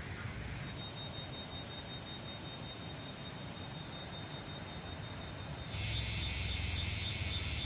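Crickets or similar insects chirping in a steady high, evenly pulsed trill, several pulses a second. About six seconds in the chorus abruptly gets louder, with a low hum underneath.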